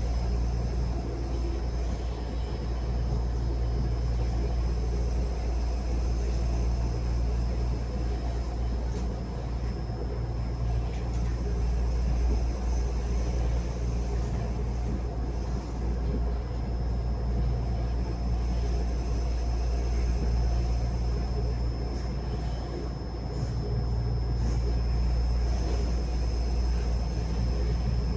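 Steady running rumble of a Taiwan Railways local train, heard from inside the car, with a thin, high, steady whine throughout.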